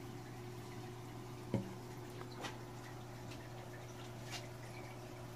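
Quiet aquarium sounds: a steady low electrical hum with a few soft drips of water.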